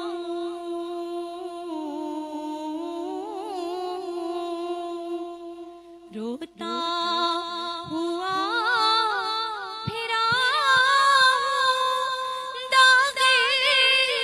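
A woman's voice singing a naat a cappella, holding long, ornamented notes. After a short break near the middle she starts a new phrase that climbs higher and grows louder, with quick ornamental turns.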